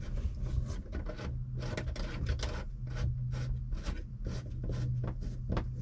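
Hands fitting a cable plug into the Garmin AIS 800 transponder: a run of small irregular clicks, taps and rubs, a few each second, over a steady low hum.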